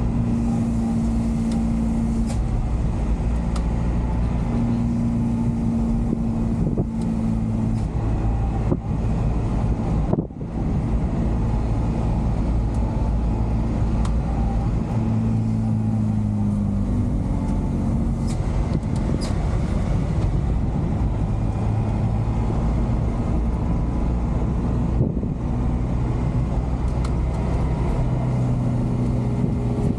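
JAC truck's engine running and tyres on the road, heard inside the cab while driving; the engine note shifts in pitch several times, with a brief drop in level about ten seconds in.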